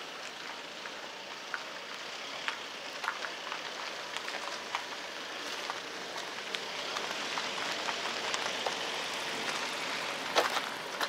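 Steady street hiss of car traffic, swelling a little as a car passes close near the end, with scattered light clicks.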